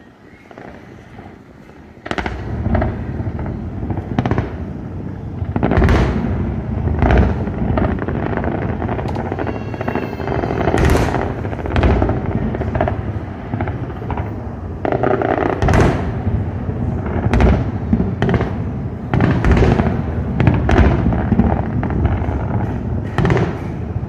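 New Year's fireworks display: a dense, continuous barrage of firework bursts with many sharp bangs overlapping, starting about two seconds in after a brief lull.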